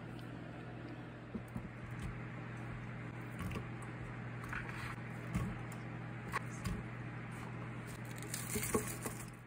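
Chopped vegetables dropped by hand into a stainless steel pressure cooker of lentils, making a scatter of light taps and patters. A steady low hum runs underneath.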